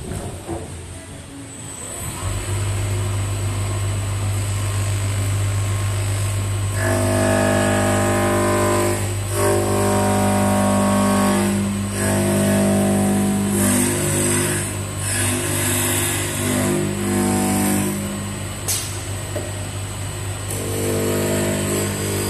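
CNC wood lathe starting up about two seconds in with a steady low hum and a high whine, then its cutter biting into a spinning square wooden block: a loud buzzing from about seven seconds in as the corners are knocked off, coming in passes, quieter near the end as the block is shaped.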